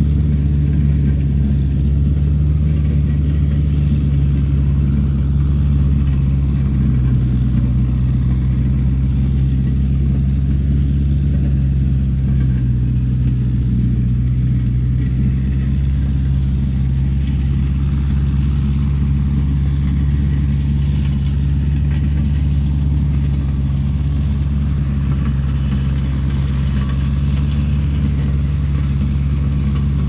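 Tractor engine running steadily, a low-pitched engine sound that holds an even level throughout.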